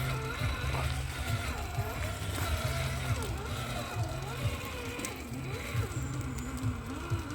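RGT EX86190 Rescuer 1/10 RC crawler driving on its original electric motor: the motor and gearing whine, rising and falling in pitch as the throttle is worked, over a choppy low rumble.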